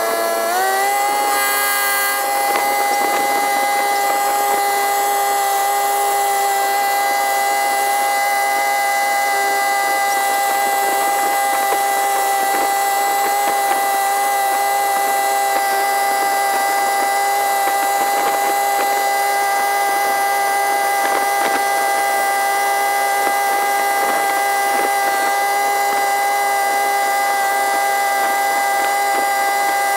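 Long-tail boat's engine running under way, played back sped up so its drone is high and whiny; it climbs in pitch in the first second, then holds a steady pitch, with a hiss of wind and water beneath it.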